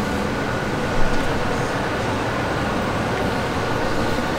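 Handheld heat gun blowing hot air over a vinyl phone skin to make its adhesive tacky: a steady fan rush with a thin steady whine. A short bump about a second in.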